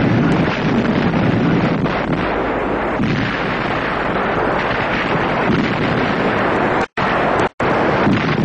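A continuous, dense din of explosions and artillery fire, a war-footage battle soundtrack. It drops out to silence twice, very briefly, about seven seconds in.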